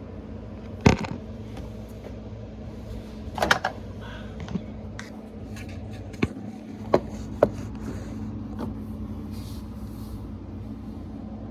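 Several sharp knocks and clicks, the first about a second in and a quick cluster a few seconds later, over a steady low hum.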